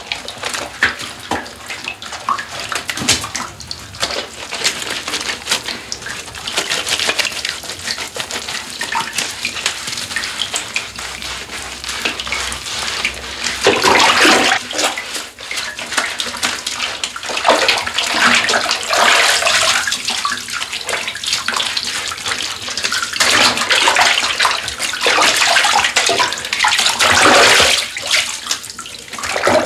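Bath water sloshing and splashing as a person moves in a filled bathtub. It comes in irregular swells, loudest about halfway through and over the last few seconds.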